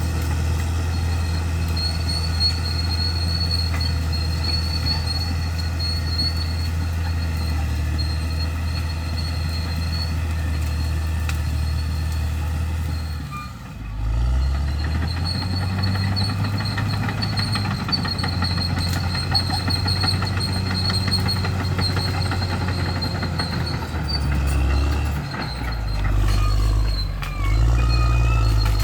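Bulldozer's diesel engine running steadily. About halfway through it drops briefly, then picks up again and changes pitch several times as the machine works. A few short squeals come near the end.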